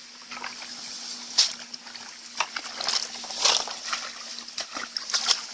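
Water sloshing and splashing in irregular surges, as in wading or working a cast net in shallow water.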